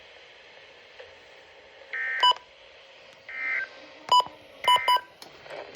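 NOAA Weather Radio's EAS end-of-message data bursts: three short, buzzy digital tone bursts (SAME encoding) about 1.3 seconds apart, marking the end of the flood warning. A few short, sharp beeps fall among the second and third bursts.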